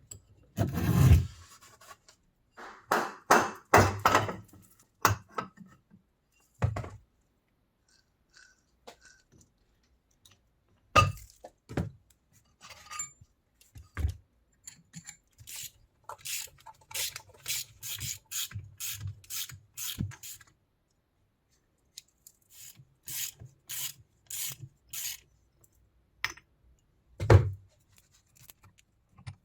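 Hand work on the parts of an old drill press: rubbing and scraping strokes, in places a steady run of short strokes about two a second, broken by several sharp knocks, the loudest near the end.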